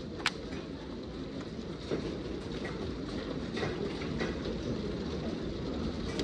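Heavy hail and rain pelting down: a dense steady roar, with scattered sharp clicks of single hailstones striking nearby, the sharpest just after the start.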